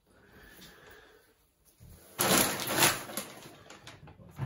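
Handling noises of packaging being pulled away from the back of a washing machine: a loud rustling scrape about two seconds in, lasting under a second, then a few light knocks and clicks.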